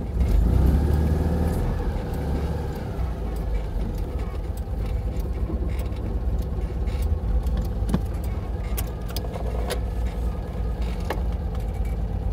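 Citroën 2CV's small air-cooled flat-twin engine running steadily, with scattered light rattles and clicks over it.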